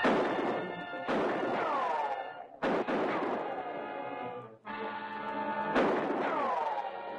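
Several pistol shots, sudden and spaced about a second or so apart, some followed by a falling ricochet whine, over dramatic orchestral film-serial music.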